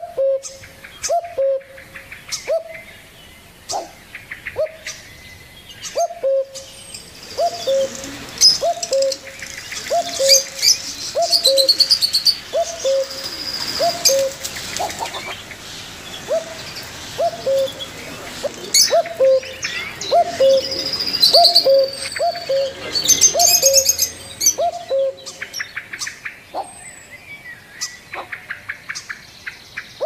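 Caged pet birds calling: a short, low, falling call repeats about once a second, and high chirping and twittering crowds in from about seven seconds until near the end.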